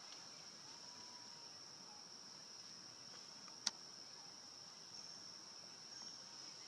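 Faint, steady high-pitched trilling of insects, with one sharp click a little past halfway.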